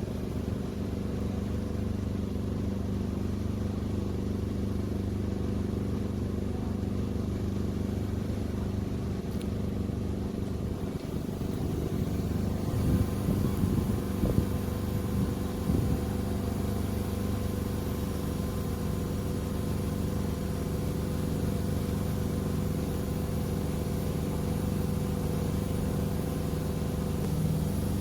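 Diesel engine of an XCMG QY25K5A truck crane running steadily, with a few sharp knocks near the middle.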